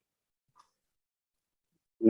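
Near silence: faint room tone broken by stretches of complete dead silence.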